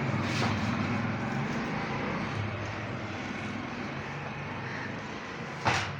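A vehicle engine running, with a steady rumble that grows gradually quieter. A single sharp knock comes near the end.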